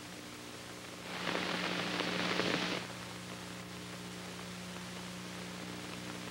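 Hiss and a steady low hum from an old film soundtrack, with a louder rush of noise lasting under two seconds from about one second in.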